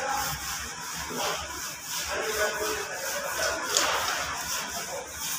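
A gloved hand mashing crumbled fresh paneer against a stainless-steel tray: repeated rubbing and scraping strokes as the paneer is worked smooth for gulab jamun dough.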